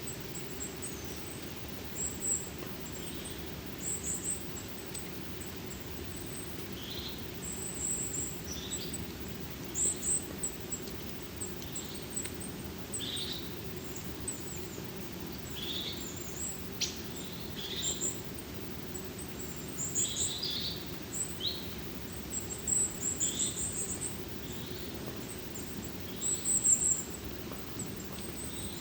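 Small forest birds, mainly tits, giving many high, thin calls and short chirps over a steady low hum of forest ambience.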